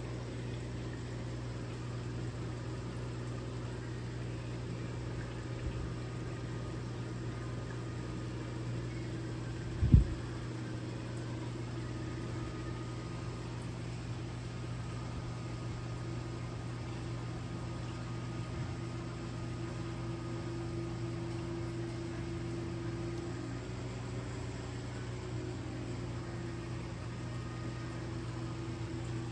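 Steady low mechanical hum of a reef aquarium's running equipment, such as its pumps. A single brief thump comes about ten seconds in.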